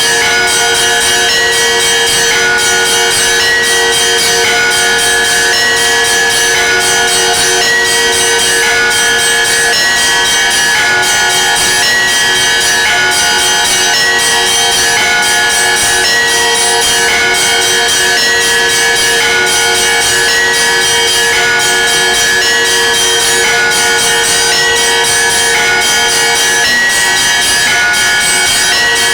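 Russian church bells rung by hand in a continuous peal (kolokolny zvon): quick, busy strikes on small high bells over the long-ringing tone of a lower bell.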